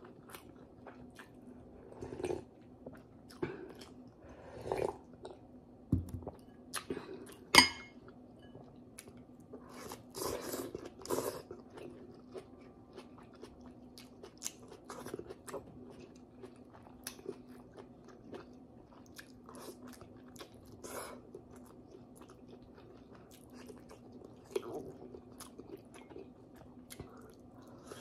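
Close-up chewing and biting of boiled pork hock and vegetables, with many short wet clicks spread through, over a faint steady hum. One sharp ringing clink about seven and a half seconds in is the loudest sound.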